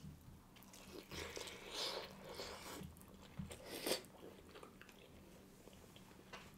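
Two people biting into and chewing fried chicken drumsticks with a crunchy outside, close to the microphone. The crunching bites come in the first few seconds, the sharpest about four seconds in, then quieter chewing.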